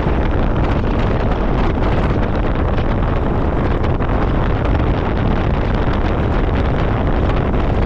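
Steady wind rush buffeting a microphone held outside a car moving at highway speed, with road and traffic noise underneath.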